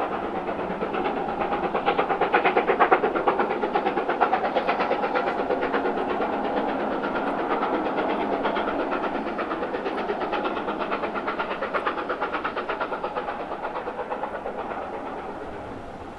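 BR Standard Class 7 'Britannia' steam locomotive working hard at speed, its exhaust beats coming rapidly and evenly. The beats build to their loudest a few seconds in as it passes, then fade slowly as it draws away.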